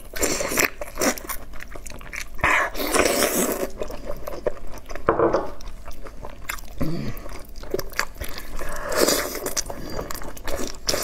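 Close-up eating sounds: biting and tearing meat off a rack of lamb ribs by hand and chewing it, with irregular clicks and smacks.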